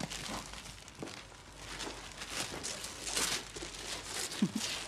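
Gift wrapping paper being torn and crumpled as a present is unwrapped, an irregular papery crackling and rustling. A brief vocal sound comes near the end.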